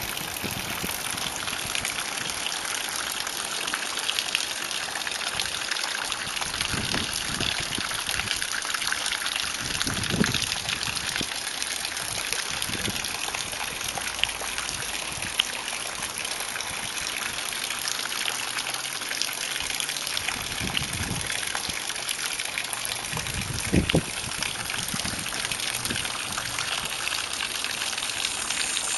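Steady gushing rush of water: shower greywater running through a suspended split-bamboo irrigation channel. A couple of brief dull bumps come partway through and near the end.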